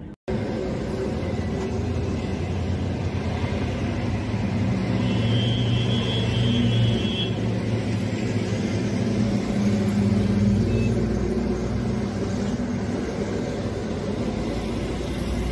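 Road traffic running along a busy street, a steady rumble of engines and tyres that swells as heavier vehicles pass. About five seconds in, a steady high tone sounds for a couple of seconds.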